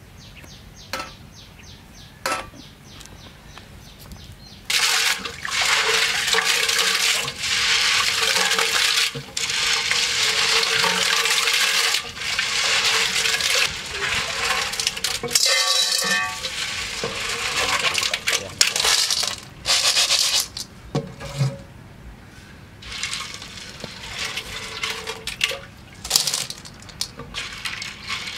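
Hands scooping snails out of cola in a glass tank: liquid splashing and sloshing, with snail shells clattering against a metal wok. It starts loud about five seconds in and goes on in bursts with short pauses.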